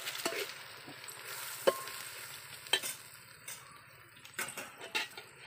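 A flat metal spatula stirs and scrapes an onion–tomato masala frying with chilli powder and ground spices in a metal pot, with a steady sizzle. A few sharp clicks come as the spatula knocks against the pot.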